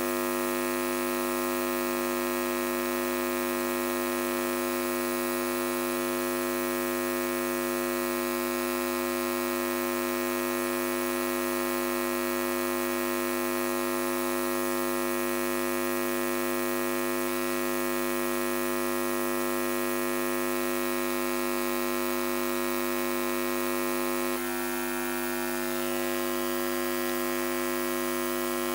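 Steady electrical mains hum with a stack of buzzing overtones from the public-address system, dipping slightly in level near the end.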